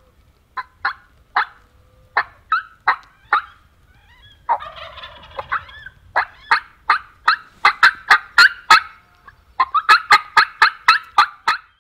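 Merriam's wild turkeys calling: a loud series of short, sharp yelps, about two or three a second at first and coming faster in runs near the end, with a longer rattling gobble about four and a half seconds in.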